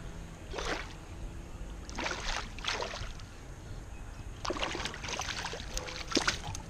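Hooked bass splashing and thrashing at the water's surface beside a kayak as it is brought in: several short splashes, coming thicker toward the end.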